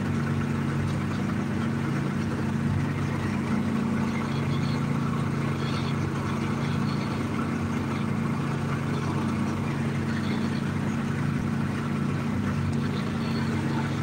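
A small engine on a bowfishing boat running steadily at an even speed, a constant low drone.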